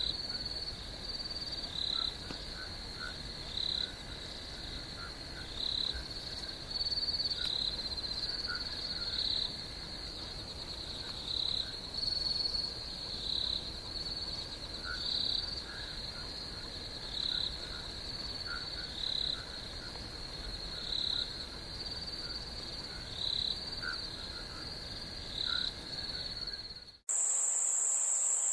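Night chorus of crickets: a steady high trill, with shorter calls repeating every second or two over it. Near the end it cuts off suddenly and a different, higher-pitched steady insect trill takes over.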